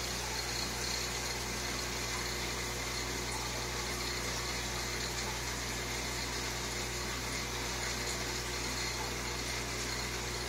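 Aquarium filter and pump running steadily: an even hum with the wash of moving, bubbling water.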